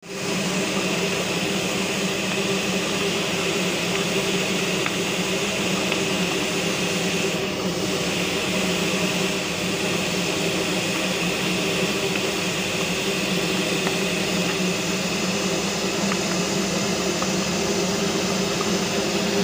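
Darjeeling Himalayan Railway steam locomotive standing still, hissing steam steadily over a low, even drone.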